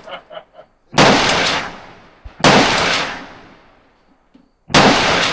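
Three single rifle shots, spaced about a second and a half to two seconds apart, each followed by a long fading echo.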